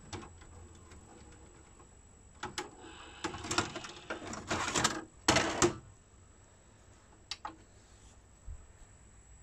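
Philips VR356 VHS video recorder ejecting a cassette: the tape mechanism clicks and clatters, then the plastic cassette scrapes out of the loading slot by hand and knocks as it is handled, with the loudest burst about halfway through and a few sharp clicks and a soft thump near the end.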